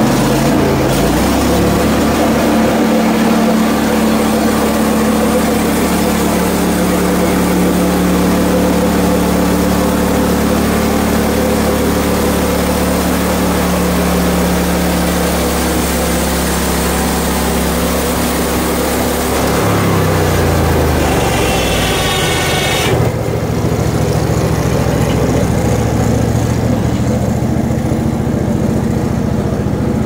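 Hud-Son portable bandsaw mill's engine running at full speed while its band blade cuts through a log. About twenty seconds in, the engine slows with a falling pitch. A few seconds later the cutting hiss stops and the engine runs on at idle.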